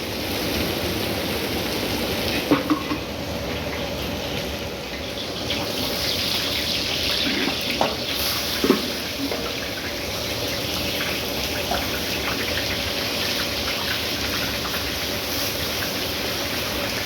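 Steady sizzling and hissing of food cooking in a large pot, with a few short metal knocks about two and a half seconds in and again around eight to nine seconds in.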